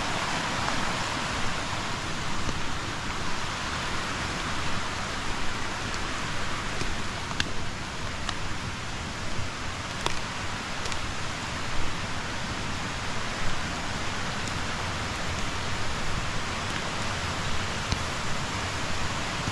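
Steady hiss of water, crossed by a scattering of sharp ticks.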